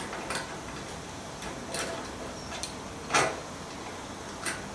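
Loose nuts, bolts and washers from a motorcycle strip-down being handled, giving about five separate sharp clicks, the loudest about three seconds in.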